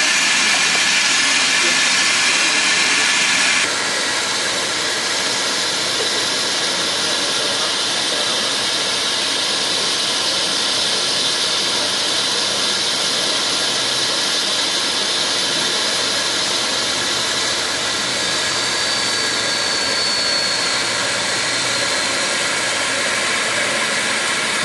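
Steam locomotive No. 473, a K-28 2-8-2, venting steam with a loud, steady hiss that drops slightly about three and a half seconds in. A faint high squeal sounds briefly late on.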